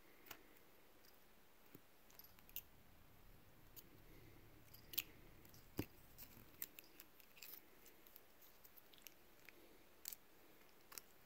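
Mostly near silence with scattered faint clicks and taps of a hard plastic toy figure being handled and mouthed by a cat, the sharpest a few seconds in and again near the end.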